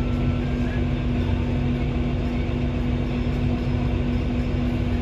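Engine of the vehicle carrying the camera running steadily, heard from inside its cab as a constant low hum and rumble.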